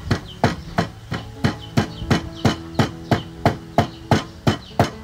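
Wooden pestle pounding in a mortar, steady dull thuds at about three strokes a second.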